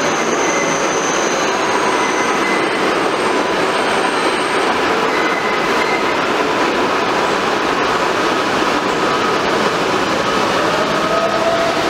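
R142A subway train pulling into the station and slowing to a stop: a steady, loud run of wheels on rail with faint high squeals early on. A tone rises near the end.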